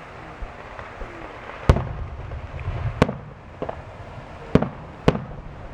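Fireworks bursting overhead in a display: four sharp bangs about a second apart and a few softer pops, the first followed by a low rumbling echo.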